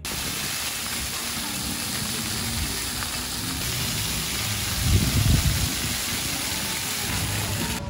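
Splash-pad fountain jets spraying steadily, a constant hiss of rising and falling water, with a louder low rumble about five seconds in.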